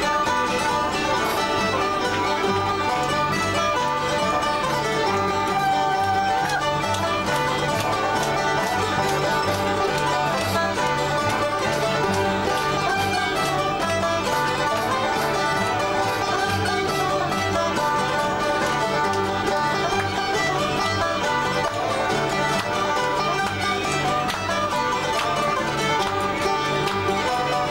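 Acoustic folk band playing an instrumental tune on fiddle, banjo, mandolin and guitar, with a steady beat of low notes about twice a second.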